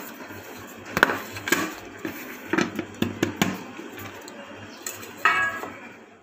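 Metal cake tin knocking against a plate several times as it is turned over and tapped to release the steamed sponge cake.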